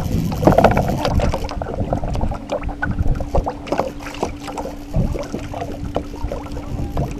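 Aluminum fishing boat's hull rocking on the water, with water slapping and gurgling against it and many short knocks and clatters of people moving on the deck. A steady hum comes in about a second and a half in and holds.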